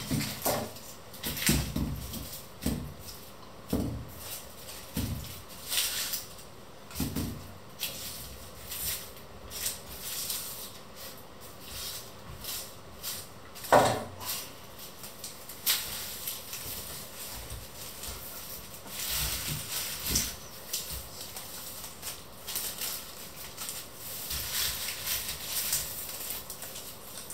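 Dry papery onion skins crackling and rustling as onions are peeled by hand, with irregular knocks and thumps on a wooden cutting board. The loudest is a single sharp knock about 14 s in.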